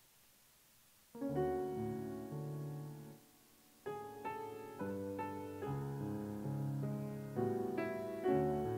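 Piano playing the introduction to the responsorial psalm. Chords start about a second in, stop briefly about three seconds in, then carry on without a break.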